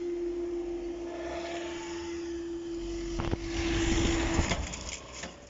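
Level crossing road barrier rising: its drive unit gives a steady hum that holds level and stops about four and a half seconds in, as the arm comes upright. Near the end there is a couple of sharp knocks in a louder, noisier stretch.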